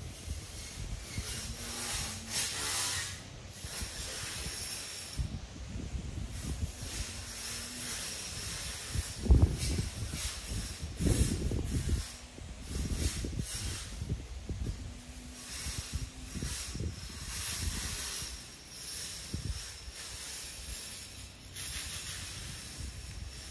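Battery-powered weed eater with a cutting blade, slicing through grass in on-and-off bursts of hiss, with a faint motor hum now and then. Low knocks and rustling come in between, the loudest about nine seconds in.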